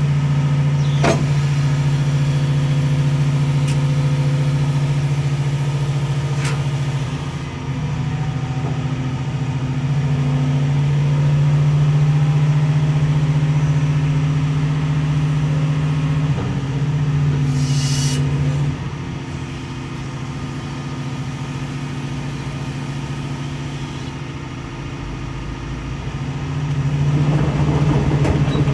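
2016 Doosan DX255LC tracked excavator's diesel engine running steadily while the boom and arm are worked hydraulically. The engine note drops for a stretch past the middle and rises again near the end. A brief hiss comes about two-thirds of the way through.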